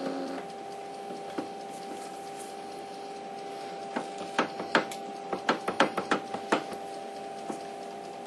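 Switched-on Emco Compact 5 CNC lathe giving a steady hum made of several even tones. From about four to seven seconds in, a quick irregular run of a dozen or so sharp mechanical clicks sounds over it.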